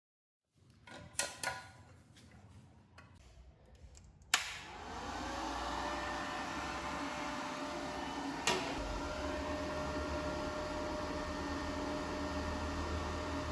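Mini inverter stick welder switched on with a sharp click, its cooling fan spinning up over about a second and then running with a steady hum. A few small clicks of handling come before it, and another click about halfway through while the fan runs on.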